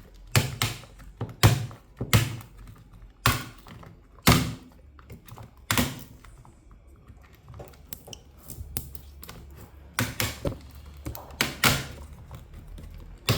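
Laptop keyboard being pried out of the plastic top case it is sealed into: a string of sharp plastic snaps and cracks at irregular intervals, some in quick pairs, as it pops free of its fastening points.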